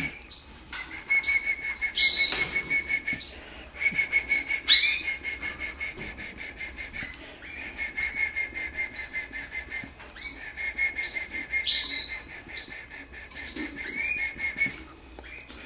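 Canary nestling about twelve days old begging while being hand-fed: bouts of rapid, high-pitched peeping a second or two long, repeated every couple of seconds.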